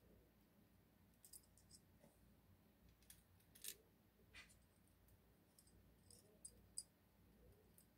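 Faint, scattered small metallic clicks and ticks from the discs and parts of an Abloy Exec disc-detainer lock cylinder as they are worked out with a thin steel tool. The loudest click comes a little under four seconds in.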